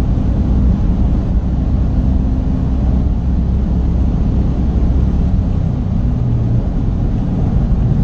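Steady low rumble of a car driving at highway speed, heard from inside the cabin: tyre, road and engine noise.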